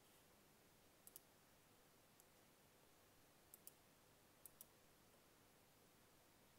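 Near silence: faint room tone broken by a few short, sharp clicks, most of them in close pairs.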